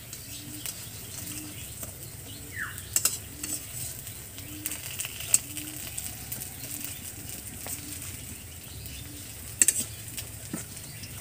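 Pumpkin-flower fritters sizzling in oil in an iron karahi, with a metal spatula scraping and clinking against the pan a few times as they are turned.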